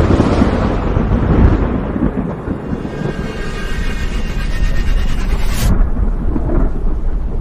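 Cinematic lightning-strike sound effect: a loud thunderclap going on as heavy thunder rumble. Faint high steady tones sit over it in the middle, and the hissing top of the sound cuts off sharply about three quarters of the way through, leaving the low rumble.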